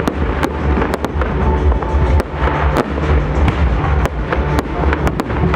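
Fireworks display: aerial shells bursting in a rapid string of sharp bangs and crackles, with music playing underneath.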